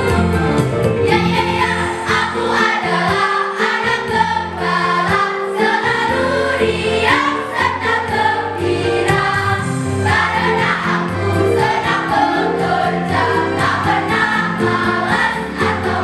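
School choir singing in parts over sustained instrumental accompaniment.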